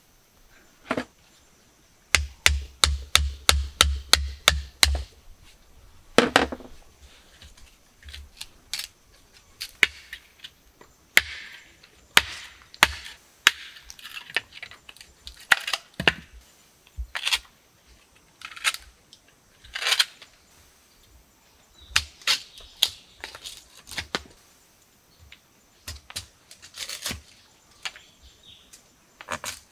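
A run of sharp knocks and cracks: a fast series of about four a second, each with a low thud, from about two seconds in, then irregular single cracks and knocks.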